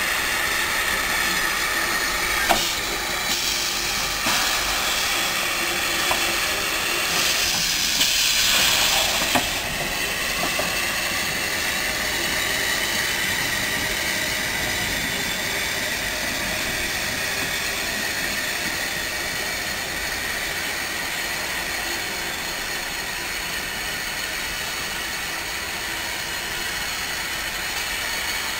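Small steam tank locomotives shunting in a yard: a continuous hiss of steam, a sharp clank about two and a half seconds in, and a louder burst of escaping steam about seven to nine seconds in before the hiss settles back.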